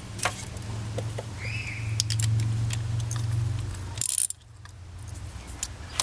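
Metal socket-wrench tools clinking and clicking as a socket is worked onto a spark plug in the engine bay, with a brief metallic clatter about four seconds in, over a steady low hum that fades out at the same point.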